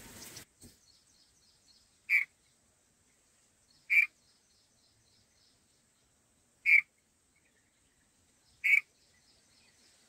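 Red-vented bulbul at its nest giving four short, sharp calls, one every two to three seconds, over faint high chirping.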